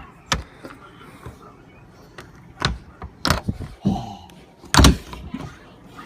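Irregular knocks and clicks, with a few heavier thuds; the loudest comes about five seconds in.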